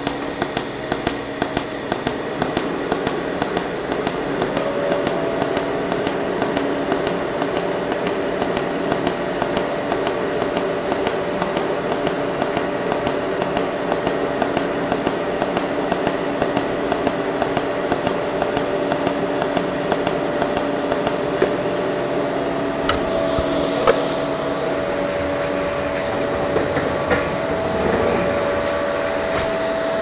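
Pulsed TIG (GTAW) welding arc from a Miller Dynasty 280 on DC negative at up to 170 amps: a steady buzzing hiss with a regular tick about twice a second as the current pulses. It is an autogenous fusion weld, with no filler rod.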